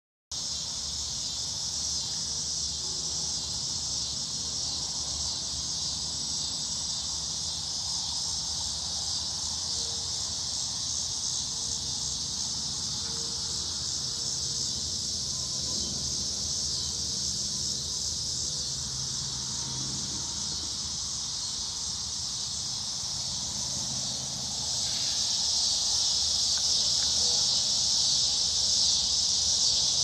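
Dense chorus of cicadas and crickets buzzing loudly in a steady, high-pitched wall of sound, growing louder about 25 seconds in.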